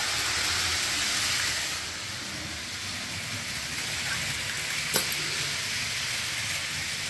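HO-scale model train running along its shelf track: a steady hissing rolling noise of wheels and motor, dropping a little in level about two seconds in, with one sharp click near five seconds.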